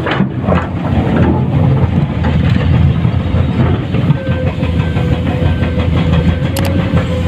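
Komatsu PC210-10 hydraulic excavator working while digging: a steady diesel engine drone under load, with a thin, steady whine above it and scattered knocks and clatter.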